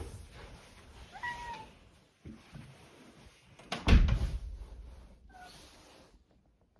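House cat meowing once about a second in, with a short faint call a little later. Between them comes a loud thump, the loudest sound.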